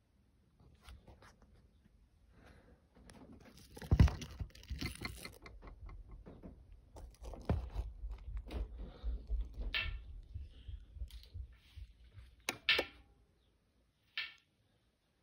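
Rubbing, knocking and crackling of a phone being handled right against its microphone, with one loud knock about four seconds in and a few sharper clicks and scrapes later on.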